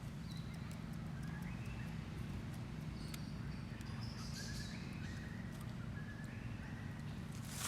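A baby monkey giving a series of short, high squeaks, over a steady low hum with scattered clicks.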